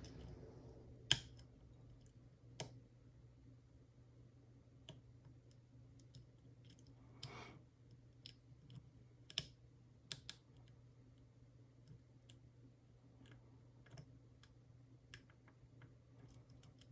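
Faint, irregular clicks and light scrapes of a flag pick and tensioner working the pins of a dimple cam lock. The clicks come a second or more apart, with a brief scrape about seven seconds in.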